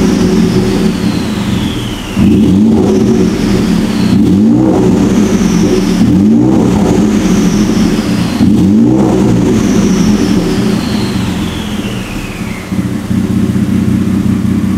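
Ford F-150's 3.5-liter EcoBoost twin-turbo V6 through a straight-piped exhaust, idling and given four short throttle blips about two seconds apart. After each blip a high turbo whistle falls in pitch as the turbos spool down.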